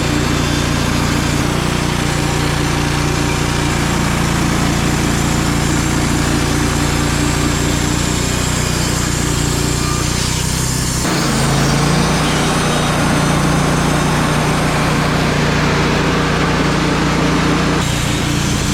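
Wood-Mizer LT35 portable sawmill running steadily, its engine note rising about eleven seconds in.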